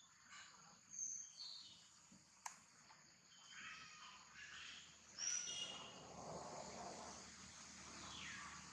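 Faint outdoor ambience: a steady high insect drone, with several short bird chirps and whistles, some of them falling in pitch, and a single sharp click.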